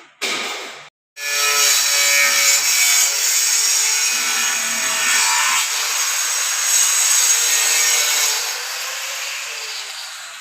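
A power tool working against a hard surface with a steady, rough grinding-rasping noise. It starts after a short burst and a brief dropout about a second in, and fades near the end.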